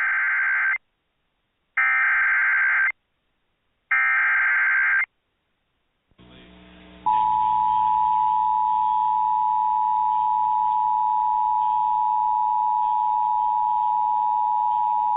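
NOAA Weather Radio alert opening. Three bursts of SAME digital header data, each about a second long, warble at the start of a new warning. After a short gap comes faint receiver hiss. About seven seconds in, the steady single-pitch 1050 Hz warning alarm tone starts and holds for about eight seconds. Together they announce the severe thunderstorm warning that follows.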